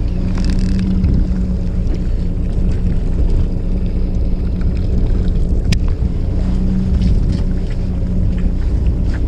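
A fishing boat's engine running steadily, an even low drone, with one sharp click a little past halfway through.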